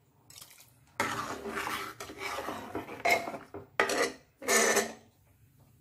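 Metal ladle stirring dal in an aluminium pressure cooker, scraping and clinking against the pot in a run of separate strokes, the loudest near the end.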